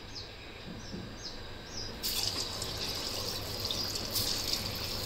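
Boiled taro root pieces going into hot oil for deep-frying: a sizzle starts suddenly about two seconds in and carries on as a steady hiss.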